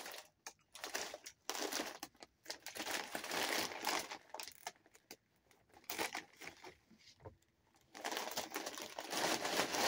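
Plastic Doritos chip bag crinkling as a hand rummages inside it for chips, in two long spells of rustling, the second near the end.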